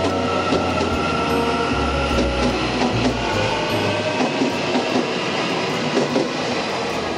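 Taiwan Railway EMU800 electric multiple unit pulling out of the station. A steady electric-motor whine runs over the rumble of the cars, with scattered clicks from the wheels on the track.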